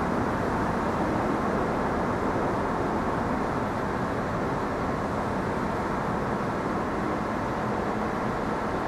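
R68 subway train running in on the rails, a steady rumble with no distinct clanks or horn.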